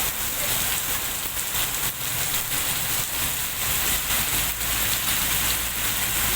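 Heavy rain falling steadily on a hard surface, a dense even hiss with scattered drop hits, over a faint low steady hum.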